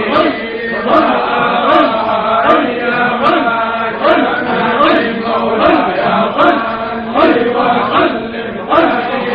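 Devotional chanting: a short phrase sung over and over in a steady rhythm, about once every three-quarters of a second.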